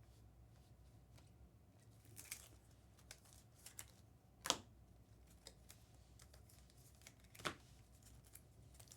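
Faint handling of trading cards on a table: a few scattered soft taps and flicks, two sharper clicks about halfway and later in, over a low steady room hum.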